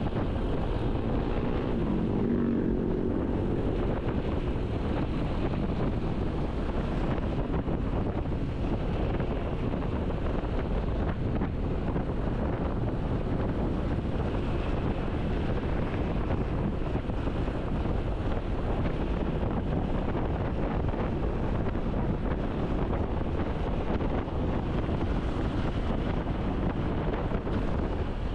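Road noise from a vehicle travelling along a street, its engine running under a steady rush of wind on the microphone. An engine note swells and bends in pitch about two seconds in.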